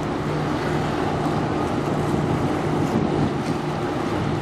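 Low, steady hum of the passing bulk carrier Whistler's machinery, with wind buffeting the microphone and water washing.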